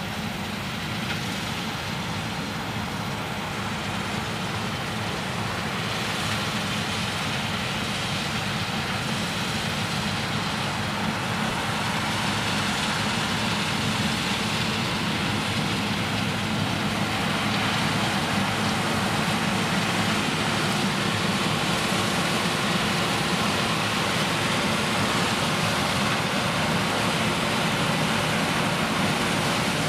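Claas Lexion 560 combine harvester threshing soybeans: its diesel engine and threshing machinery running steadily, growing gradually louder as the machine comes closer.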